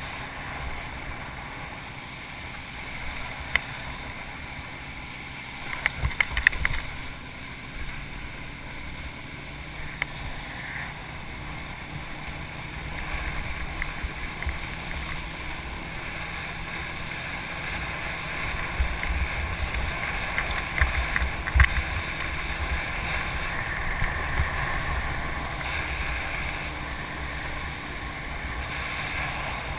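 Wind buffeting an action camera's microphone and water rushing under a wakeboard towed behind a boat. A few sharp knocks and splashes stand out, a cluster about six seconds in and another near twenty-two seconds.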